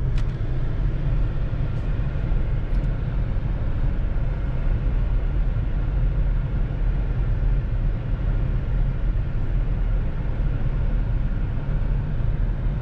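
Car driving slowly, a steady low engine and road rumble heard from inside the cabin.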